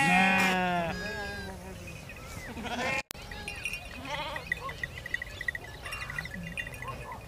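Sheep bleating: one loud, long bleat at the start, a shorter one right after, then scattered fainter bleats from the flock.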